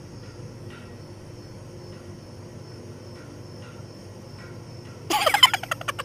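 An African grey parrot gives one short, loud call made of rapidly repeated pulses near the end, lasting just under a second. Before it there is only a low background with faint, regularly spaced chirps.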